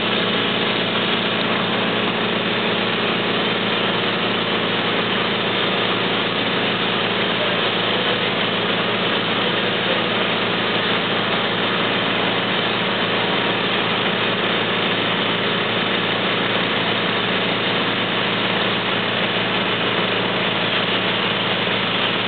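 Fire apparatus engine running steadily at a constant speed: an unchanging drone with a few steady hum tones.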